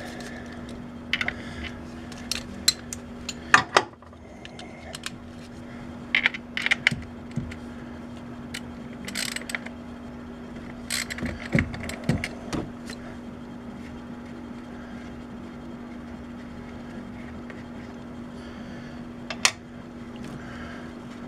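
Scattered clicks, knocks and light plastic-and-metal clatter from gloved hands and tools working on the coil pack rack and its wiring connectors of a Chevy 5.3 V8 with the engine off, the loudest knocks near four seconds in and again near the end. A steady low hum runs underneath.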